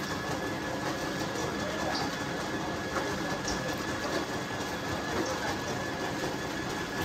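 Steady mechanical drone of a running motor, with a faint constant whine; a few small scrapes and taps of fish and net on wet mud over it.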